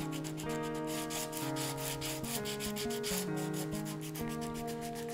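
Sandpaper rubbed by hand in quick back-and-forth strokes over a bocote wood knife handle, a steady scratchy rhythm from 120-grit finish sanding. Background music plays under it.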